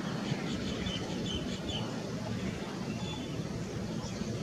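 Wind buffeting the microphone over a low outdoor rumble, with a few short bird chirps about half a second to a second and a half in.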